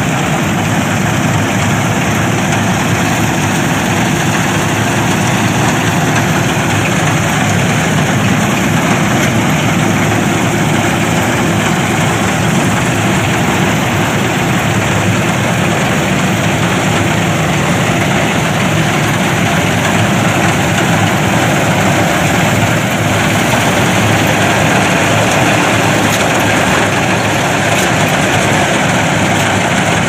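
Steady, loud engine-like machine drone that runs on evenly without pauses or changes.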